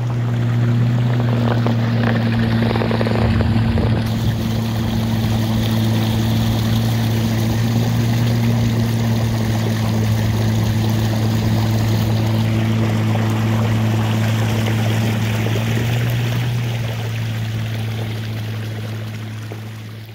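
Steady low motor hum with a hiss over it, fading out near the end.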